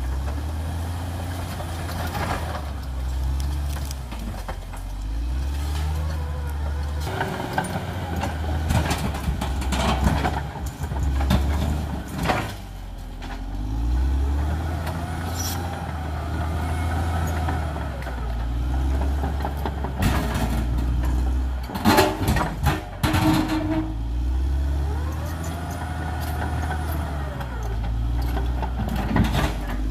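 Caterpillar D6R XL bulldozer's diesel engine running under changing load, its pitch stepping up and down, with squeals from the tracks and running gear. A cluster of sharp knocks and clanks comes about two-thirds of the way through.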